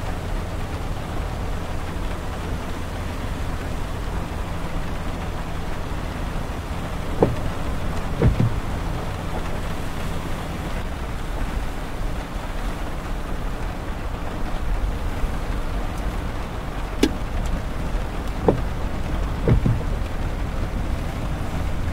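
Steady low rumble of a car driving on a rain-wet highway, engine and tyre noise on the wet road heard from inside the car, with a few short sharp taps scattered through.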